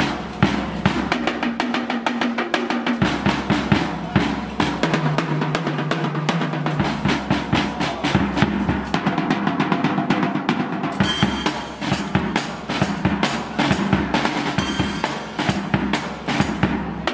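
Music with a drum kit playing a fast, steady beat of kick, snare and cymbals over a bass line that moves between held notes every few seconds.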